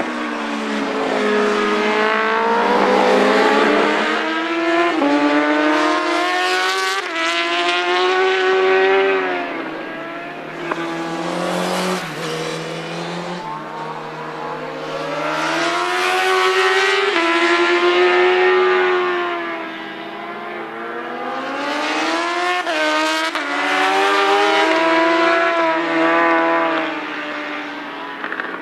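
Road-racing motorcycle engines at high revs passing on a circuit in three waves. The pitch climbs under acceleration and drops back at each gear change.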